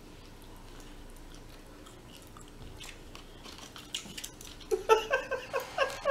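Close-up chewing of roasted chicken with light clicks, then, about three-quarters of the way in, a woman laughing in about six short, high-pitched bursts.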